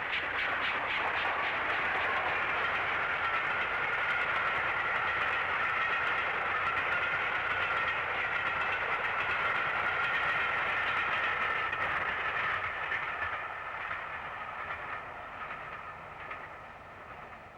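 Steam locomotive Flying Scotsman, an LNER A3 Pacific, running at speed. A rapid, even beat in the first couple of seconds gives way to a steady rush of train noise, which fades away over the last few seconds.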